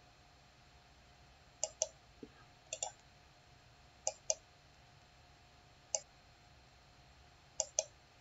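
Computer mouse buttons clicking: six short groups of clicks, mostly quick pairs, spaced out with pauses between them, as points on a shape are selected, dragged and added.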